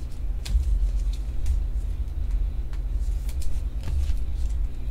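Steady low background hum, with a few faint clicks and taps of trading cards being handled.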